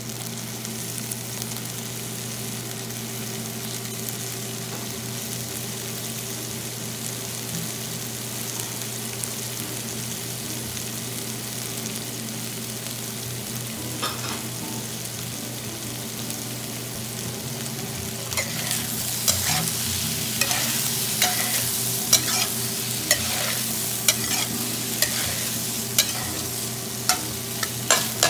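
Shrimp, diced carrot and frozen corn sizzling in oil in a stainless steel wok. In the latter part a metal spatula stirs them: the sizzle grows louder and the spatula clicks and scrapes against the pan about once a second.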